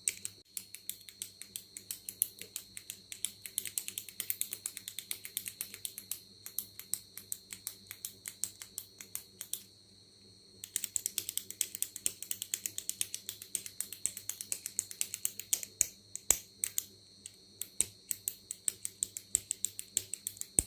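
A retractable pen clicked rapidly over and over, several sharp clicks a second, with a short pause about halfway through.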